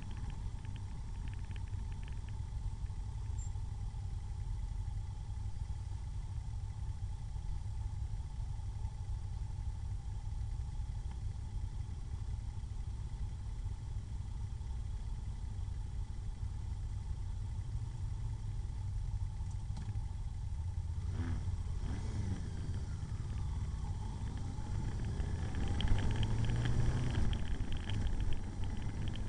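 Motorcycle engine running at low speed under a steady low rumble, heard from the bike itself. The engine pitch rises and falls from about two-thirds of the way in, and it gets louder near the end as the bike speeds up.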